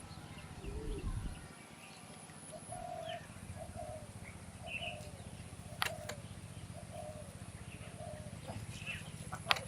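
Swans giving a run of short, soft calls, one brief note after another, with a sharp click about six seconds in and a louder one near the end.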